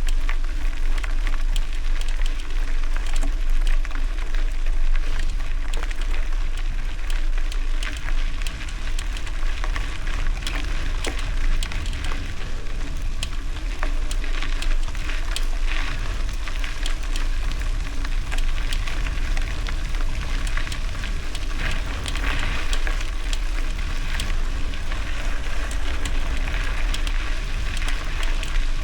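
Bicycle tyres rolling over gravel: a steady crackle of small stones over a constant low rumble.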